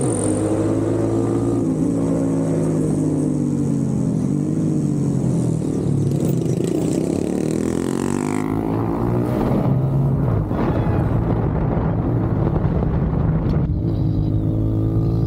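Motorcycle engines running on the road, their pitch rising and falling with the throttle over a steady low drone.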